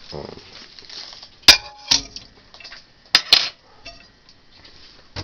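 A dinner plate clinking against glass and hard surfaces as it is put into a Kenmore microwave: four sharp clinks in two pairs, one pair about a second and a half in and the other just past three seconds.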